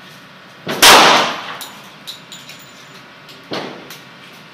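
A single shot from a Glock 20 10mm Auto pistol firing 180-grain factory ammunition, about a second in, with a short echoing tail. A few light clinks follow, and a quieter bang comes near the end.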